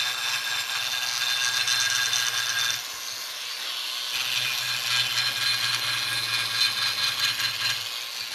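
A Foredom flex-shaft rotary tool running a small sanding drum against a cast aluminum engine case: a steady high motor whine with a rasping grind. The grind eases for about a second around three seconds in, then resumes as the drum smooths the aluminum.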